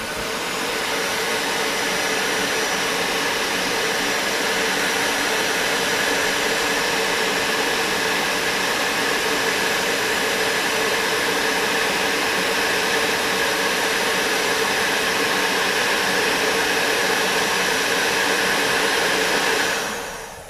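Electric heat gun running steadily, blowing hot air to shrink heat-shrink tubing over a soldered wire splice. It is switched off near the end and dies away.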